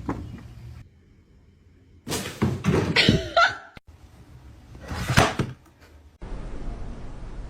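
Several thuds and bangs in short bursts: one near the start, a cluster about two to four seconds in, and another just after five seconds.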